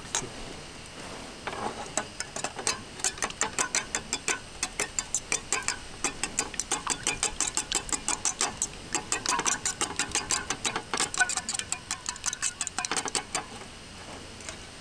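A long run of quick, even taps or knocks, about four to five a second, starting a second or so in and stopping shortly before the end.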